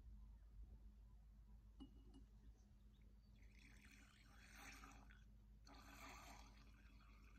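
Near silence, with a faint click about two seconds in and two short stretches of faint hiss in the second half.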